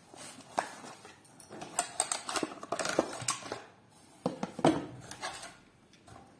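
Handling noise from unboxing a flexible gorilla tripod: its paperboard box rustling and scraping as the tripod slides out, and its plastic ball-jointed legs clicking and clacking in the hands, in a string of irregular clicks and rustles.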